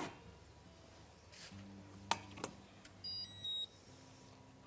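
Stainless steel pan set down on a glass Indesit induction hob with two light knocks about two seconds in, then two short electronic beeps from the hob's touch controls as it is switched on.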